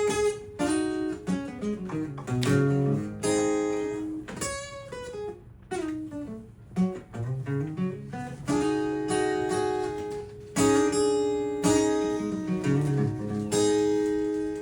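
Solo acoustic guitar: strummed chords that each ring and die away, with single-note bass runs between them.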